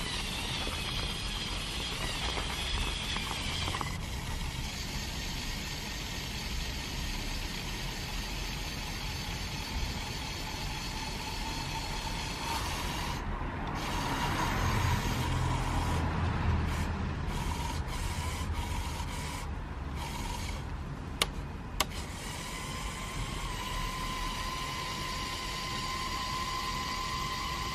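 Small electric motors and plastic gearing of a motorized Lego Technic Volvo L350F wheel loader whining steadily as it drives through snow, with two sharp clicks about three-quarters of the way through.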